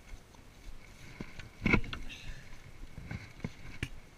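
Handling noise on a body-worn action camera: scattered knocks and rubbing as a sleeve and hand brush against it. The loudest knock comes about a second and a half in, and smaller clicks follow in the second half.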